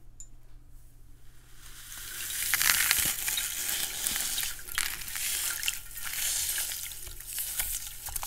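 A block of dry floral foam being squeezed and crumbled by hand, a dense crackling crunch that starts a second or two in after a quiet start and carries on steadily with many small snaps.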